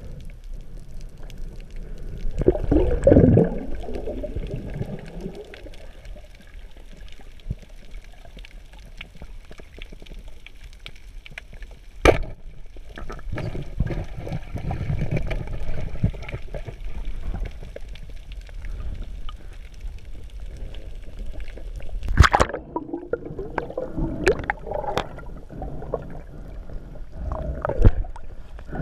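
Underwater sound picked up by a diver's camera: a steady low rumble of water with stretches of gurgling and churning. Sharp clicks cut through it about twelve seconds in, again about twenty-two seconds in, and once more near the end.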